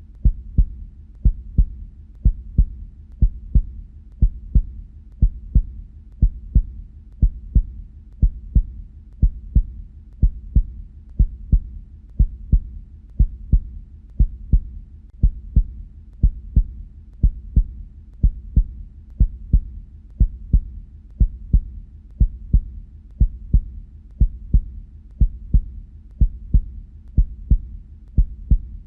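Human heartbeat, a steady lub-dub of paired low thuds about once a second: the sound of the heart valves closing.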